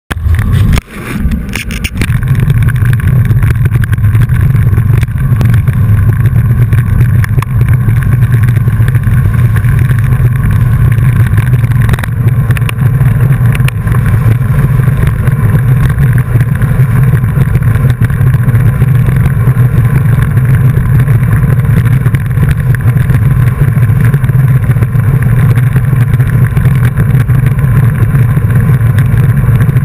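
Wind buffeting the action camera's microphone while riding: a steady, loud, low rumble. A few handling knocks come in the first two seconds.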